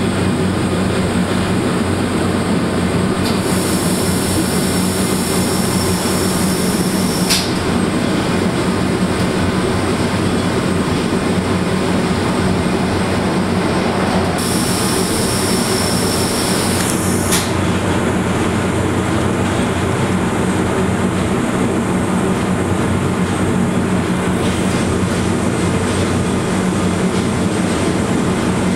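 Monte Generoso rack railway railcar running steadily uphill, heard from inside the carriage: a continuous drone with a low hum. Twice a high hiss with a thin whistle comes in for a few seconds and stops with a sharp click.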